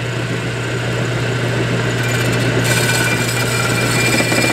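Craftsman metal lathe running with a steady motor hum. About two and a half seconds in, a hissing cutting noise joins it as a hacksaw blade, turned backwards, is pressed against the spinning workpiece to part off a spacer.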